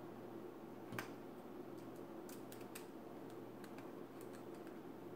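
Faint, scattered ticks and clicks of a small Phillips screwdriver and screws being fitted into a laptop hard-drive caddy, with one sharper click about a second in.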